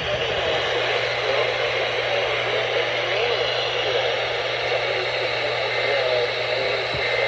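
Weather radio receiver hissing with steady static and a low hum, with a faint click near the end.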